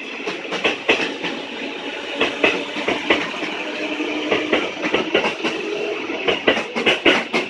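Electric commuter train (KRL Commuter Line) running through the station, its wheels clacking over rail joints and points in a dense, irregular stream of sharp clicks, with a steady high tone underneath.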